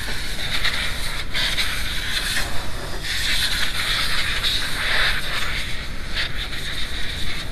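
Steady hiss of noise added over the soundtrack to mask shop radio music, under which a shop rag rubs and scrapes against the fuel filter housing, the scraping swelling and fading.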